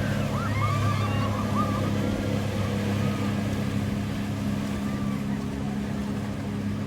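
Speedboat engine running steadily, a low hum with water noise. High wavering cries sound over it in the first second and a half.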